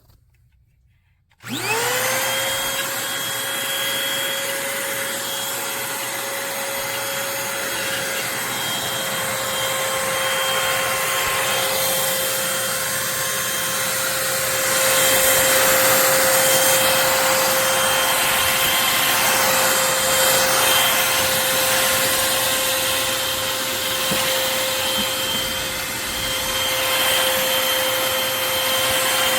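Eureka corded stick vacuum cleaner switched on about a second and a half in. Its motor spins up quickly to a steady whine over a rush of air and keeps running.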